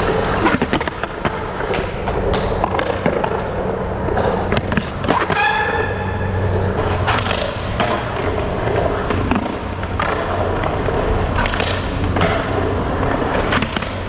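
Skateboard wheels rolling on concrete, with several sharp clacks of the board popping and landing, and a brief falling squeal a little over five seconds in.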